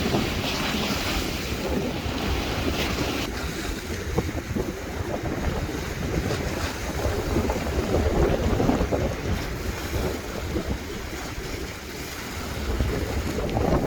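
Sea waves washing in, with strong gusting wind buffeting the phone's microphone in a low, uneven rumble.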